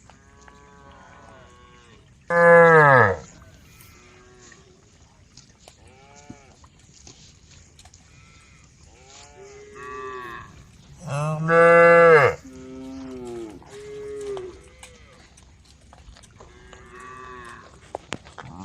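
A herd of cows mooing: two loud, close moos, one about two seconds in that drops in pitch as it ends and a longer one about eleven seconds in, with fainter moos from other cows overlapping throughout.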